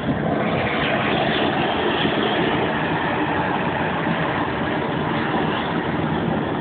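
Gas torch burning with a steady, even rushing noise as it singes the bristles off a slaughtered pig's skin.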